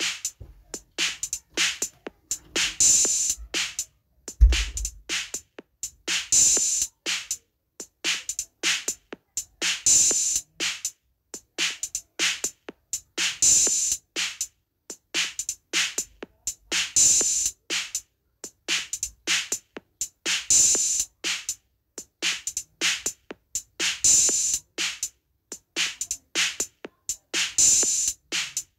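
Rhythmic drum beat for a halay dance, a looped pattern of crisp drum strikes that repeats about every three and a half seconds.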